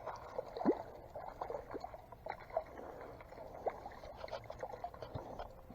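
Irregular light splashes and clicks as a small panfish is reeled in and brought out of the water on light spinning tackle.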